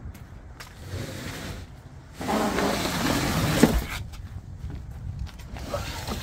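Rustling and handling noise as things are moved about in a van's cargo area, loudest for a couple of seconds in the middle and ending in a single sharp knock, with light scattered clicks around it.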